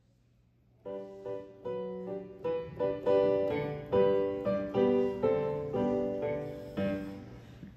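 Piano playing an introduction, starting about a second in: a run of struck chords and melody notes, each fading after it is played.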